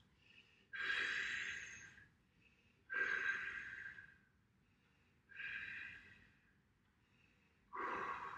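A man breathing deeply and audibly while holding a floor stretch: four slow breaths, each about a second long, spaced a little over two seconds apart.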